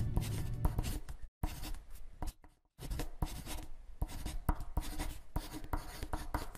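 A marker scratching out handwriting in quick, irregular strokes, with two short pauses in the first three seconds.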